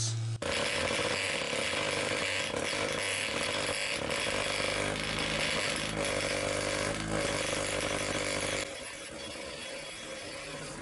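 Handheld electric massager buzzing steadily, its head pressed against the combination dial of an EIKO home dial safe, so the dial rattles as the vibration shakes the combination wheels inside toward lining up. Near the end the buzz drops in level and thins out.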